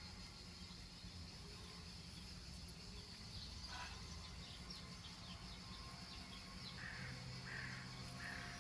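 Birds calling over a steady high hiss: a quick run of small chirps about halfway through, then three short harsh calls near the end.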